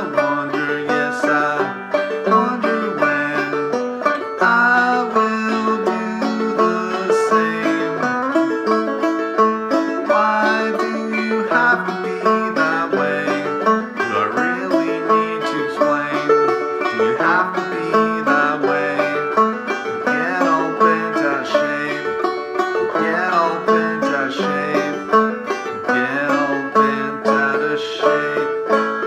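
Gold Tone CC-Carlin 12 open-back five-string banjo played clawhammer style: an instrumental old-time tune of steady, rhythmic plucked notes.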